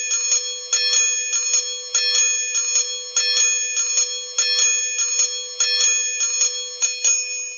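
Cartoon bell sound effect: ringing metallic bell tones struck in a quick figure of about four strikes, the figure repeating about every second and a quarter, then stopping.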